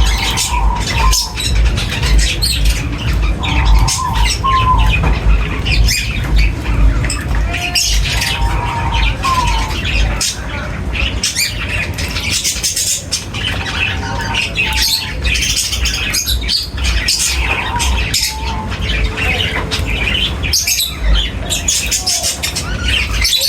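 A flock of birds squawking and chirping at a feeding spot, with many short calls overlapping, over a steady low rumble.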